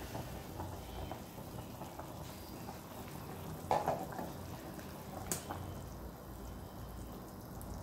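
Pot of chicken broth simmering with a steady low bubbling hiss. A few light knocks of cookware come about four seconds in, then a sharp click a little after five seconds.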